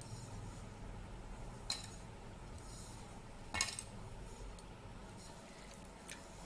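Quiet hand-kneading of stiff chakli dough in a metal kneading plate, with two light clinks of kitchenware, the second louder, and a faint third near the end.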